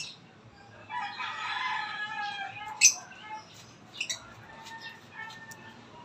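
A rooster crows once, a pitched call lasting about a second and a half, followed by sharp, shrill chirps from caged lovebirds, the loudest about halfway through.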